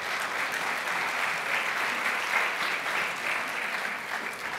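Lecture audience applauding, a steady mass of clapping that thins out toward the end.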